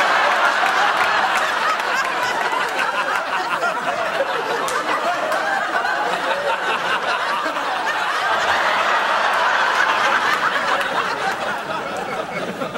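Studio audience laughing long and loud. The laughter eases a little, swells again, then tails off near the end.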